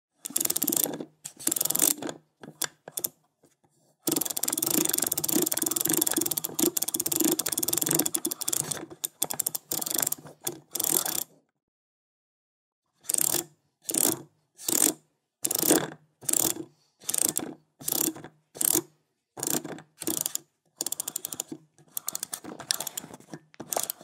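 Safe combination lock dial being turned, a fast run of small mechanical clicks. First come short turns, then a long continuous spin of several seconds. After a pause there is a string of short separate turns, about two a second, and a longer run near the end.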